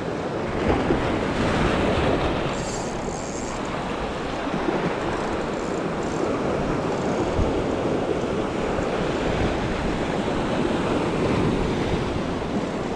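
Sea surf washing and breaking against a rocky shore in steady, swelling waves, with wind buffeting the microphone.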